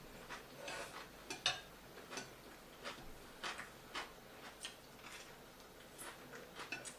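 Close-miked eating sounds from people eating momo and noodles: irregular small wet smacks and clicks of chewing, with light utensil and dish clicks, a few each second.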